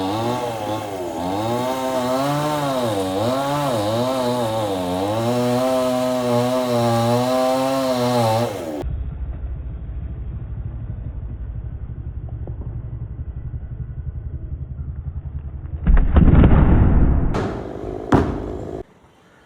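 Two-stroke chainsaw running, its engine pitch rising and falling as it works. After an abrupt change partway through it drops to a low idle, then is revved hard twice near the end before cutting off.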